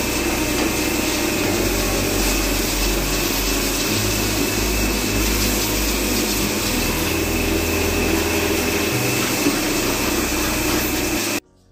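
Pressure washer jetting water into a tractor's engine bay: a steady loud hiss of the spray over the pump's low, wavering drone, cutting off suddenly near the end.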